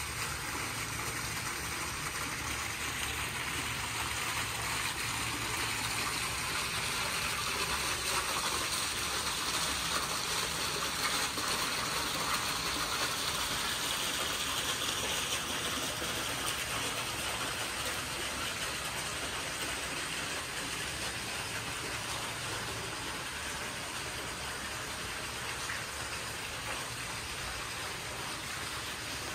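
Steady rushing of water, with a faint low hum underneath.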